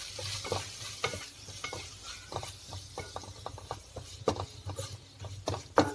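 A spatula stirring and scraping onion-tomato masala and spice powders around a pan, with frequent light scrapes and taps over a soft sizzle of frying; a couple of sharper knocks of the spatula against the pan near the end.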